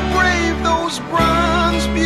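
Background music: a song with a wavering melody line over held bass notes, the bass dropping out briefly near the middle.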